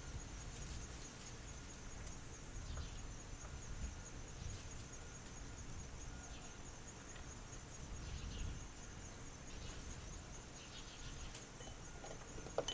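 Insects trilling steadily in a high pulsing tone, over low outdoor rumble, with a few faint small clicks.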